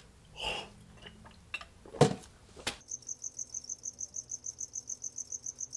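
A few faint mouth noises and a sharp knock about two seconds in, then from about three seconds in a cricket chirping in a fast, even rhythm of several chirps a second.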